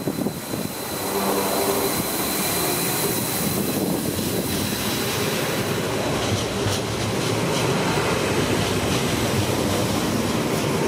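NSB Type 75 (Stadler FLIRT) electric multiple unit moving past close by at low speed, a steady running noise of motors and wheels on rail. From about six seconds in, wheel clicks over rail joints come through.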